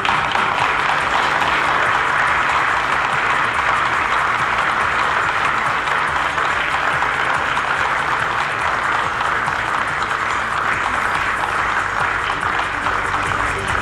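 A crowd of people applauding: the clapping starts sharply and goes on steadily, easing a little near the end.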